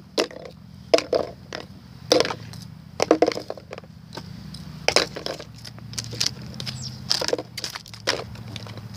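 Slime being squeezed and worked in the hands, making irregular squelching clicks and pops, over a steady low hum.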